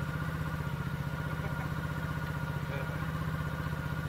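Coolster ATV-3125XR-8U 125cc single-cylinder four-stroke engine idling steadily, with an even, fast pulse.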